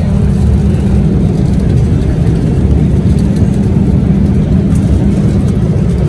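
Passenger-cabin noise of an airliner in flight: a steady, loud low rumble.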